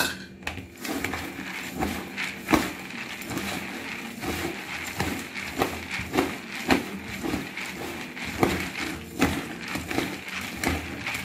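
Metal spoon stirring dry puffed rice in a plastic bowl: a steady rustle of the puffed rice with irregular clicks and knocks of the spoon against the bowl, a few a second.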